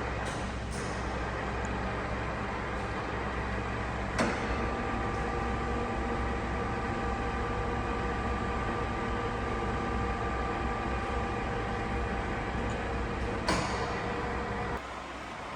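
Novisa radial arm drill running with a steady machine hum, its arm-elevating motor and gearing driving the arm up or down the column. A click about four seconds in brings in a whine of several steady tones, which stops with a second click near the end. The overall hum drops shortly after.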